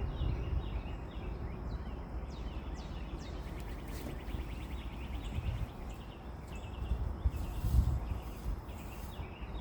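Small birds chirping over a steady low rumble, which swells briefly twice in the second half.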